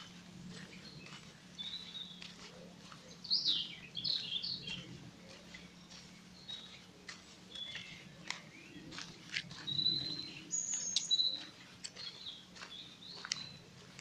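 Woodland birds singing and chirping, with many short, clear whistled notes, and crunching footsteps on a dirt path.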